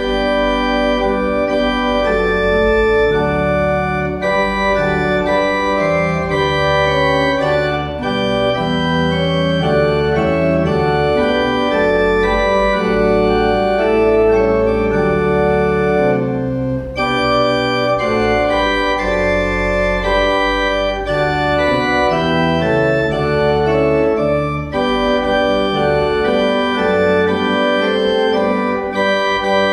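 Church pipe organ playing a slow piece in full held chords over a moving bass, with a brief break about halfway through.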